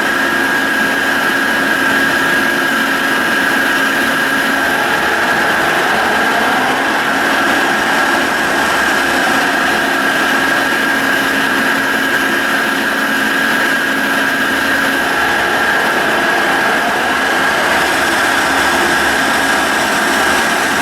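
Carlton radial arm drill press running under power: a steady mechanical hum with a constant high-pitched whine from the drive.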